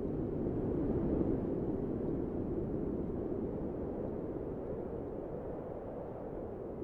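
A steady low rumble of noise, with no tune or voice in it, easing slightly after the first couple of seconds.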